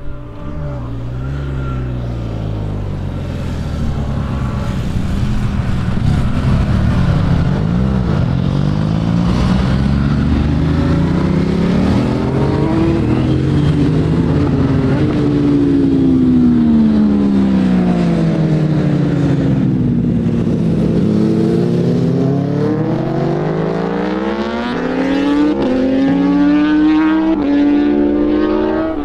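Several sport motorcycles passing one after another, engines revving hard with pitch sliding up and down as they go by and change gear. The sound grows louder a few seconds in and stays loud, with stepped rises like upshifts near the end.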